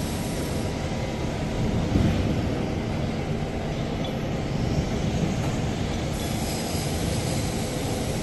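Steady low hum and rumble of running workshop machinery, with a single short knock about two seconds in.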